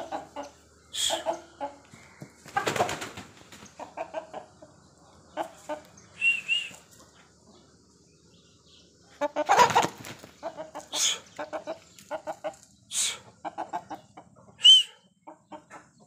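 Aseel gamefowl clucking in short runs of low calls. Two longer rustling bursts come about 3 and 10 seconds in, and two brief high chirps about 6 and 15 seconds in.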